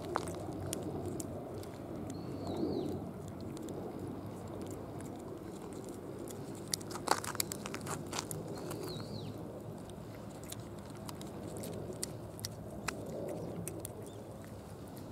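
Cat licking paste from a squeezed lickable treat tube: a run of small wet clicks and smacks, thickest about seven seconds in, over a steady low rush.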